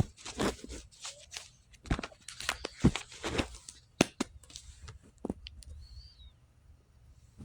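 Rustling and handling noises: a run of short scrapes and taps for about four seconds, thinning out to a few light clicks, with a brief faint high chirp about six seconds in.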